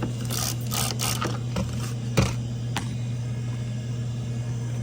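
Several short hissing squirts from a spray bottle of leak-detection solution on freshly brazed refrigerant joints, with a sharp click about two seconds in, over a steady low machine hum. The spraying stops after about three seconds.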